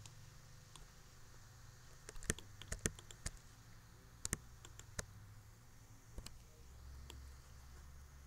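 About eight sharp, separate clicks of a computer keyboard and mouse, spread over a few seconds, over a low steady hum.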